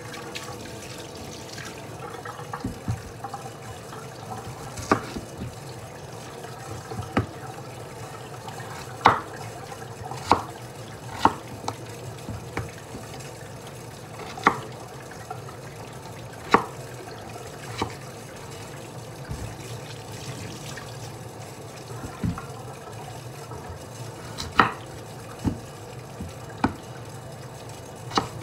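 Kitchen knife cutting peeled potatoes on a wooden cutting board: short, sharp knocks as the blade goes through and strikes the board, about a dozen of them at irregular intervals, over a steady background hiss.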